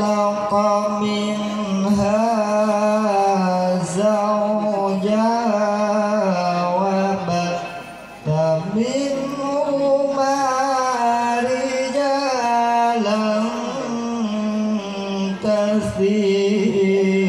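A male qari reciting the Quran in melodic tilawah style into a microphone: long held, ornamented phrases with a breath pause about eight seconds in.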